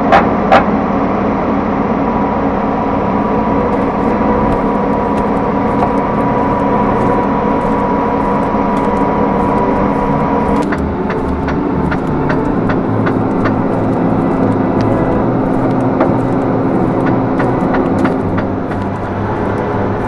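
Fortschritt E 516 B combine harvester running steadily, its machinery turning. A thin steady whine stops suddenly about halfway through, and after it come scattered sharp clicks and rattles.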